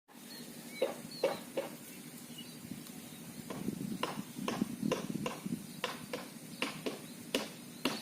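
Faint outdoor background with scattered short clicks and taps and a few brief high chirps, like small birds.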